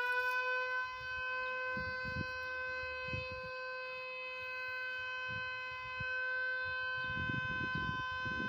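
Outdoor warning siren sounding a steady, high single tone with strong overtones, held at full pitch after winding up.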